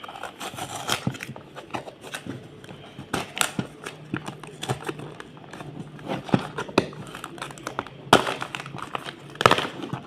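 Blind-box packaging being opened by hand: plastic crinkling and tearing, with irregular clicks and snaps of the box and parts being handled.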